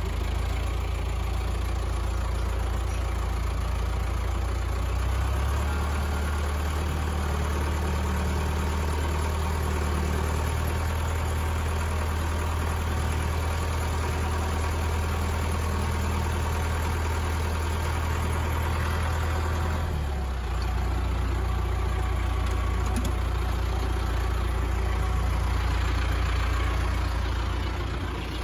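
Allis-Chalmers 6080 tractor's diesel engine running, heard from the operator's seat. Its note rises about five seconds in and drops back about twenty seconds in.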